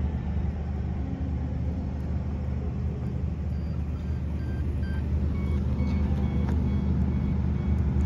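A steady low engine hum, made of several even low tones that hold level throughout, with a few faint short high chirps over it.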